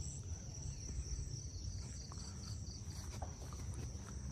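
Insects droning steadily in one high-pitched tone, with a faster pulsed chirping underneath for the first few seconds, over a low rumble.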